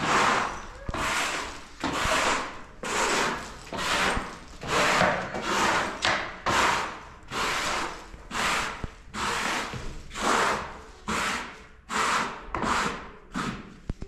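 Hand saw cutting through wood in steady back-and-forth strokes, about two a second, each stroke a rasping hiss.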